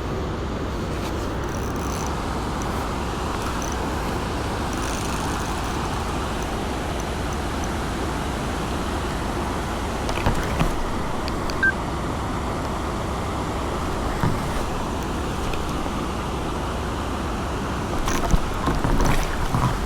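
Steady rush of a shallow trout stream's flowing water, with a few small knocks and clicks about halfway through and near the end.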